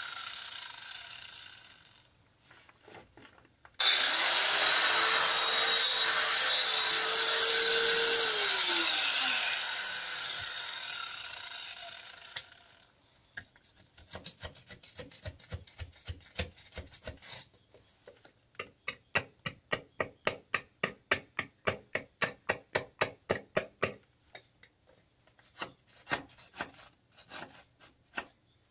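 Electric angle grinder: a grinding noise fading out, then the grinder starts about four seconds in and runs at steady speed grinding for about four seconds. It is switched off and spins down, and the grinding noise dies away. After that comes a long run of short rhythmic scraping strokes, about three a second.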